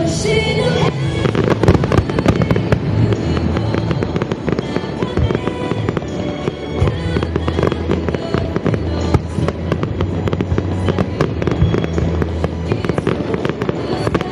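A rapid barrage of fireworks bursting and crackling, many bangs overlapping, with music played over loudspeakers underneath.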